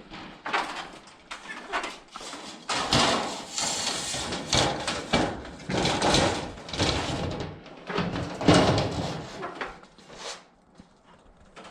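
Thin sheet steel being handled and worked while forming a roof hip cap: irregular scraping, rattling and clanking, busiest through the middle.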